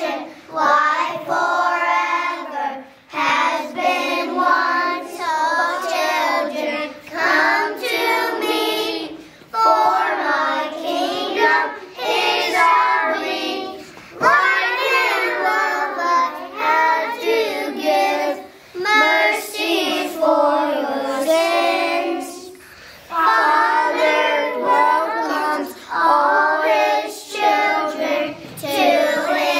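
A kindergarten choir of young children singing together, in phrases with short breaks between them.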